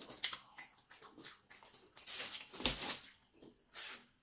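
Close-up mouth sounds of a person eating: irregular wet smacks and clicks of chewing, louder and denser about two seconds in.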